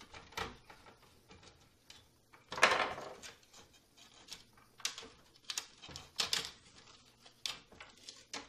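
Irregular clicks, knocks and rustles of circuit boards and the monitor's plastic and metal chassis being handled inside an opened LCD monitor. The loudest is a brief clatter about two and a half seconds in.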